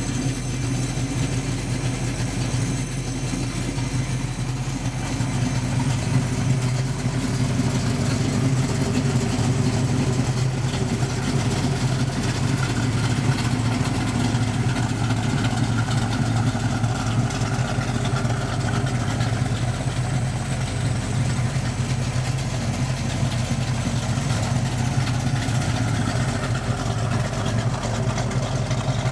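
1973 Plymouth Barracuda's V8 engine idling steadily.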